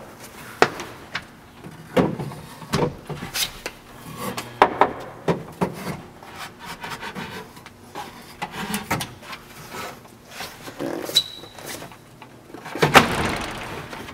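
Homemade wooden bench-bed platform being pulled out and folded down by hand: a run of wooden knocks and clunks as the panels and loose hinged legs bump, with wood scraping on wood. The slide is rough, not smooth, and the longest, loudest scrape comes about a second before the end.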